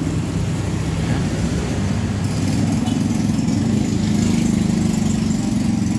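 A small engine running steadily, a continuous low drone that goes on without a break.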